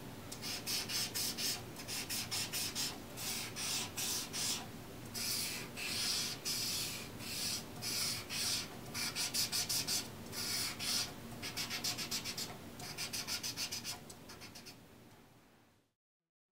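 Tip of a glow-paint applicator rubbing across canvas in quick repeated strokes, a dry scratchy scrubbing that stops about fourteen seconds in.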